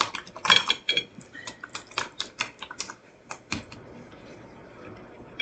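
Kitchen utensil clicking and scraping against a dish while Greek yogurt is spooned onto a baked potato: a quick, uneven run of light clicks for about three and a half seconds, then they stop.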